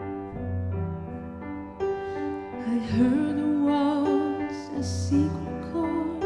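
Grand piano playing chords, with a woman's singing voice coming in about two and a half seconds in over the piano.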